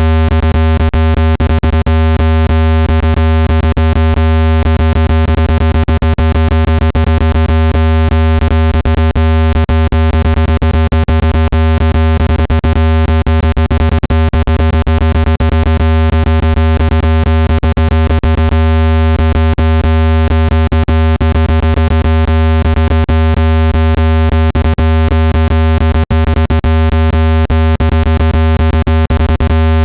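Speaker water-ejection tone: a loud, steady, synthesized low tone with many overtones and a fast crackle of clicks, meant to vibrate trapped water out of a phone speaker.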